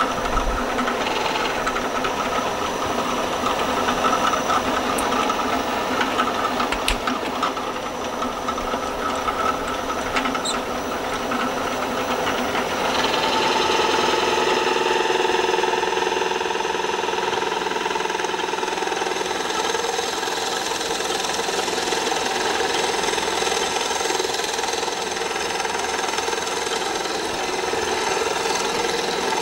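Drill press running, its 3/4-inch Forstner bit boring into a hardwood block. The sound is steady and changes in character about halfway through.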